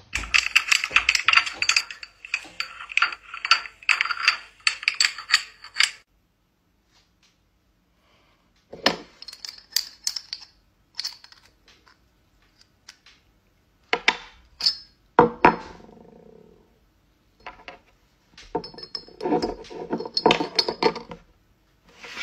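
Scissors and a cup or glass being handled on a hard surface: bursts of quick clicks, clinks and knocks, separated by short quiet gaps.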